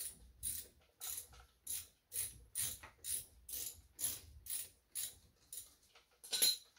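Ratchet wrench clicking in repeated strokes, about two a second, as it backs out the caliper slide-pin nut on a Ram 1500's front brake caliper. The loudest stroke comes near the end.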